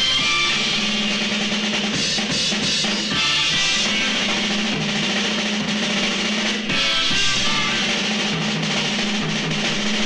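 Live rock band playing, with a drum kit prominent over bass and guitar.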